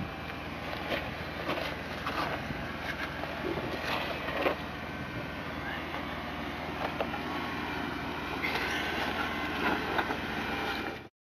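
Jeep Wrangler JK crawling slowly over boulders, its engine running low and steady while the tyres crunch and scrape on rock, with scattered knocks and faint squeaks from the chassis and suspension. The sound cuts off abruptly near the end.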